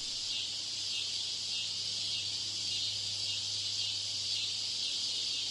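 Steady high hiss over a low electrical hum: noise deliberately laid into a test recording to imitate a poor exam-hall broadcast system.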